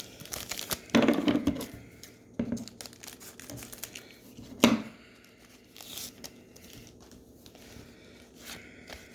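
Trading cards and their paper packaging being handled: irregular crinkling and tearing rustles, loudest about a second in, with a sharp snap a little before the halfway point.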